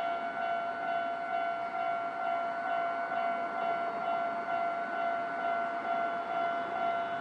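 Japanese railway level crossing's electronic warning bell ringing over and over in a steady, high-pitched repeating tone, the signal that a train is approaching.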